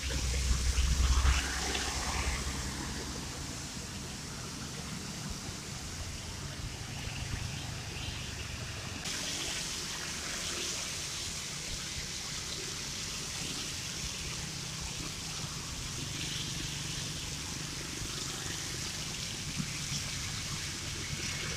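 Traffic on a rain-wet road: a coach passes close with a low rumble in the first second or so, then a steady hiss of tyres on wet asphalt from passing cars and motorcycles.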